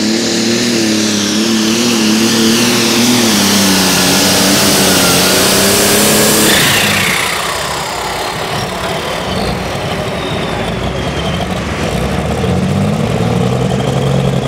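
Turbocharged diesel pulling tractor engine at full throttle under load, with a high turbo whistle over it. About six and a half seconds in the engine drops off sharply as the throttle comes off; an engine revs up again near the end.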